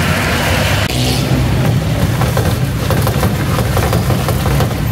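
An engine running steadily at idle, a low even hum, with scattered light clicks on top.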